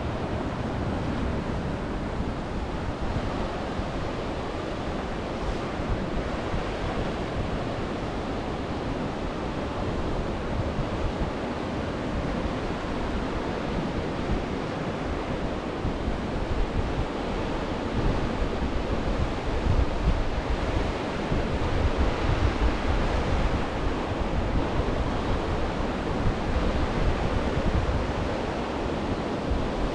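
Sea surf breaking and washing up a beach of round pebbles. Gusts of wind rumble on the microphone, heavier in the second half.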